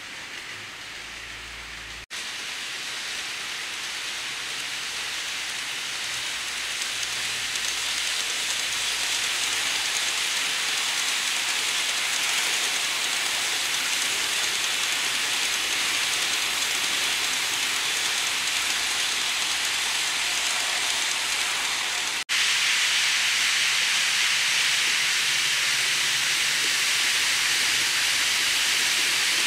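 N scale model Shinkansen trains (100 series and 300 series) running on the track: a steady rolling hiss that grows louder over the first ten seconds or so as a train draws near. The level jumps suddenly about two seconds in and again a little after twenty seconds.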